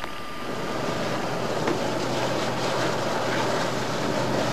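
Rescue helicopter running on the ground: a steady rushing noise of engines and rotor with a constant low hum, growing a little louder in the first second.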